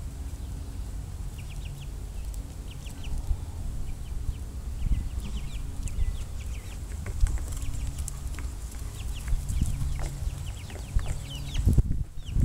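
Short high bird chirps in quick runs of three or four, repeating throughout, over a low rumble and a faint steady hum. A louder low burst of noise comes near the end.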